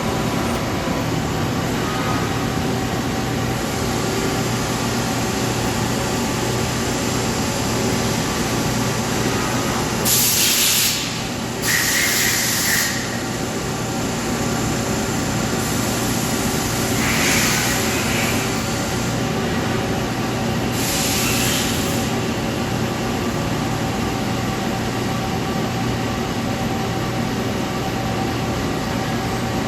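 Nomura NN-25YB Swiss-type CNC lathe running with a steady machine hum made of several fixed tones. Four short bursts of hiss come at about ten, twelve, seventeen and twenty-one seconds in.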